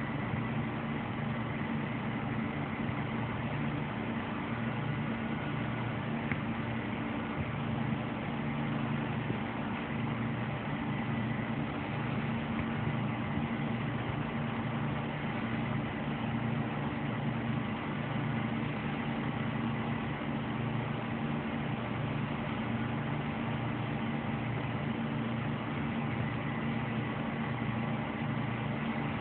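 Computer cooling fans, including a Thermaltake CPU fan, running at a steady speed: an even whirring hum with a faint high whine above it.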